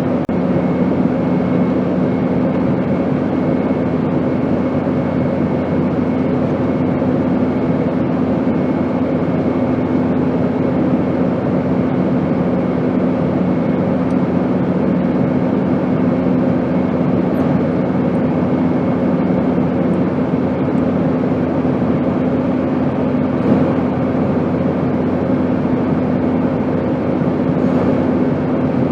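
Airplane noise: a steady rushing drone with a constant low hum and a faint higher whine. One of the low hum tones drops out about two-thirds of the way through.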